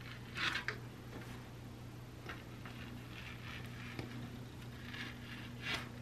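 Scissors snipping through fabric: a run of short cuts, the loudest about half a second in and again near the end, over a low steady hum.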